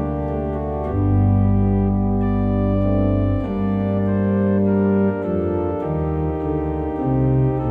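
Viscount Sonus 60 digital organ, tuned in Vallotti temperament, playing an organ prelude in sustained full chords over a strong bass line that moves every second or so.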